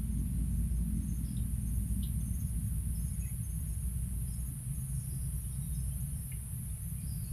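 Steady high-pitched insect chorus, with a few short high chirps over it, under a louder, uneven low rumble from the microphone being carried through the undergrowth.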